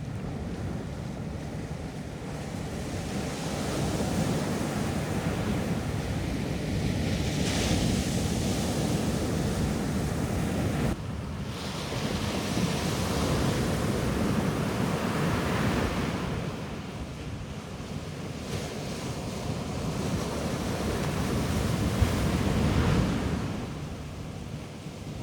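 Ocean surf breaking and washing up on a beach, rising and falling in long surges several seconds apart.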